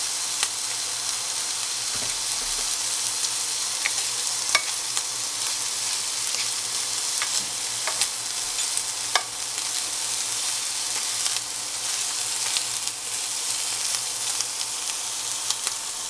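Tuna, egg and onion sizzling steadily in a non-stick frying pan, with a spatula scraping and clicking against the pan several times as the mix is stirred.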